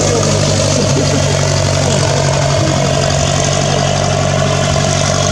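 Aerobatic propeller plane's piston engine idling steadily on the ground.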